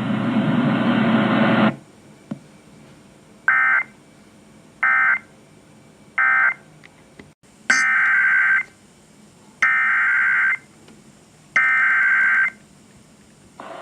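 Emergency Alert System digital data bursts: three short warbling bursts, the end-of-message code, then three longer warbling bursts of about a second each, the header of the next alert. Before them comes a burst of loud hiss that cuts off about two seconds in.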